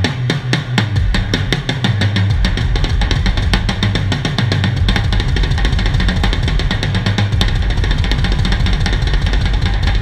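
Rock drum kit solo: fast snare and tom strokes with cymbals, speeding up in the first second into a dense roll. From about two seconds in, rapid bass drum kicks fill in underneath.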